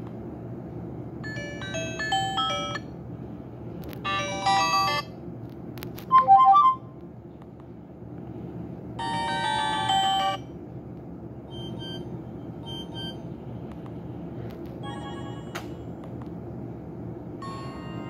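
Nokia 130 phone's speaker playing Nokia E70 ringtones: a string of short electronic melodies, each lasting a second or so with brief gaps between, over a steady low background hiss.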